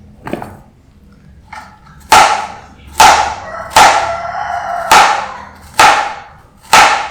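Repeated kitchen strikes that ring like a metal pot or bowl. Two lighter knocks come first, then from about two seconds in loud, evenly spaced blows fall about one a second.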